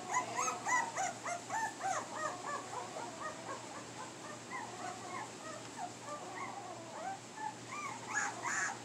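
A litter of American pit bull terrier puppies, about three weeks old, whimpering and squeaking. Many short, high cries rise and fall and overlap, several a second.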